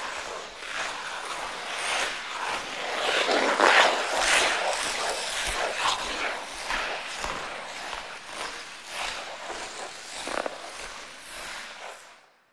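Metal ice-skate blades scraping and carving across rink ice in a run of rough, overlapping scrapes, loudest about four seconds in, easing off and cutting off just before the end.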